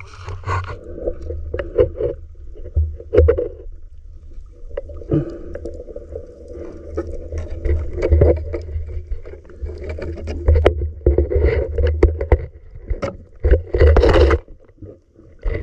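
Underwater water noise heard through a submerged camera: a continuous muffled low rumble with scattered knocks and clicks as the diver swims, and a brighter burst of noise near the end.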